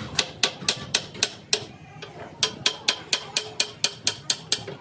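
Quick hammer strikes on metal, about four or five a second, in two runs with a short pause about two seconds in.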